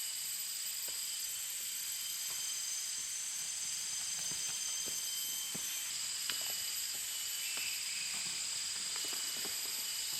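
Steady chorus of insects, a high shrill hiss with several held tones, with scattered faint clicks and ticks underneath.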